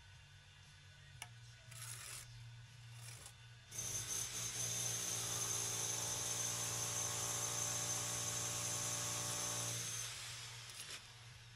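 A few light clicks and scrapes of bricks being handled. About four seconds in, an electric motor starts abruptly, runs with a steady high whine for about six seconds, then winds down.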